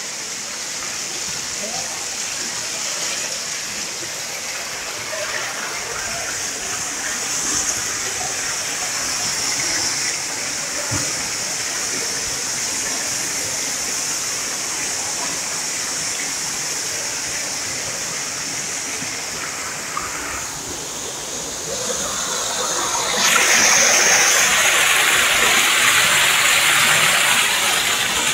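Waterfall rushing steadily, growing louder near the end.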